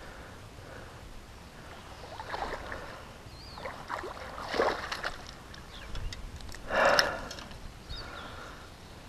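Hooked largemouth bass splashing at the surface as it is reeled in and lifted out of the water, in a few short bursts, the loudest about seven seconds in.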